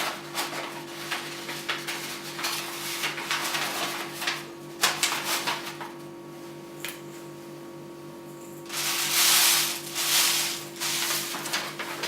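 Lavender being poured and pushed through a paper funnel into a copper still column: repeated rustling and crackling of the plant material and paper, with a longer, louder rustle about nine seconds in.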